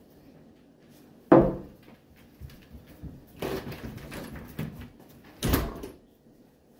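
Knocks and bumps of someone moving about a room: a sharp knock a little over a second in, a stretch of shuffling and clatter, then another loud knock about five and a half seconds in.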